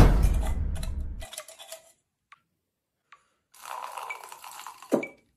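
A loud hit at the start with a rumbling tail that fades within about a second. Later, liquid is poured from a soda can in a thin stream into a plastic cup, starting about three and a half seconds in, with a short thud near the end.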